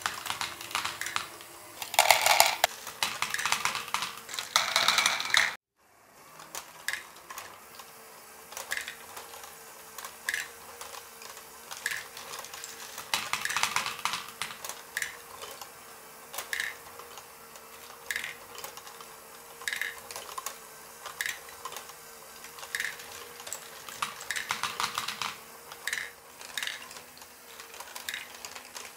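Lego plastic mechanism running: a small electric motor and its gear train turning steadily, with a click about every second and a half as the crank works the rocking platform. Hard plastic balls clatter in bursts, densest in the first few seconds and again about halfway through and near the end.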